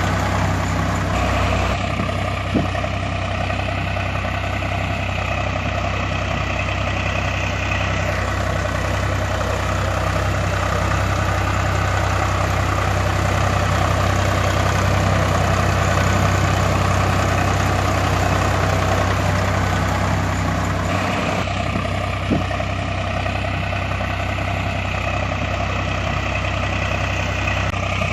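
A heavy engine idling steadily, with a low, even drone. The sound seems to repeat itself, including a light click that recurs about twenty seconds apart.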